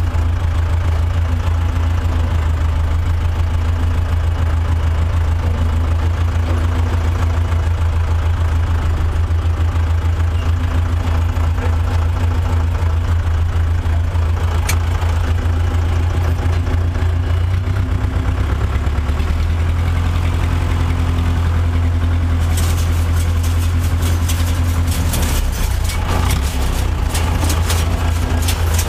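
Farm tractor engine running steadily under way, a loud low drone. A few seconds before the end a quick clattering rattle of clicks and knocks sets in over it.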